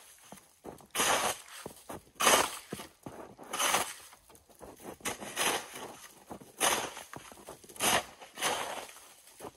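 Plastic snow shovel scraping along and scooping melting, packed snow in repeated strokes, roughly one every second or so.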